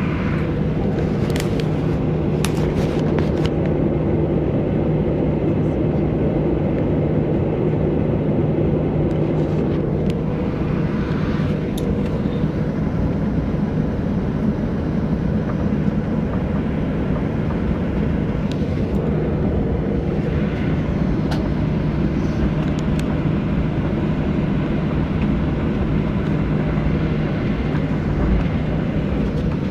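Steady drone inside an airliner cabin before takeoff, a constant hum with a noisy rush over it, and a few light clicks and knocks near the start and about ten seconds in.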